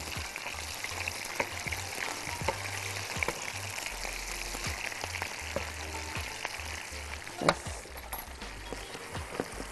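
Minced-meat kofta balls frying in butter and their own juices in a pan, a steady crackling sizzle, as they are turned over with a fork and spoon that click against the pan now and then, loudest about seven and a half seconds in.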